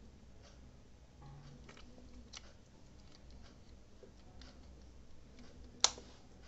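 Handling of a plastic wireless-earbud charging case and earbud: scattered light clicks and taps, with one sharp click near the end.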